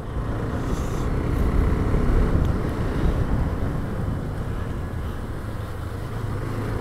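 KTM 390 Adventure's single-cylinder engine running steadily on the move at about 35 to 45 km/h, mixed with wind noise on the microphone.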